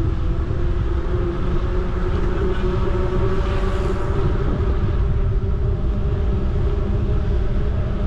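Wind buffeting the microphone and the rumble of a bicycle rolling on an asphalt path, heard from the moving bike. The noise is steady and low, with a faint steady hum above it.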